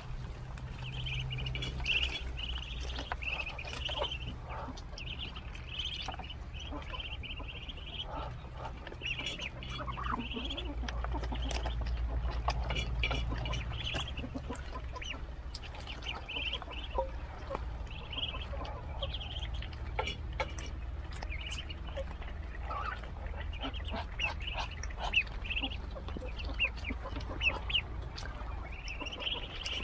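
A brood of ducklings peeping continuously in short, repeated high calls as they feed on water spinach (kangkong), with scattered sharp clicks throughout.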